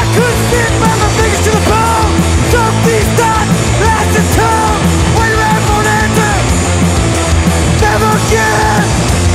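A punk rock band playing loud and live, with electric guitars and a man singing lead vocals over them.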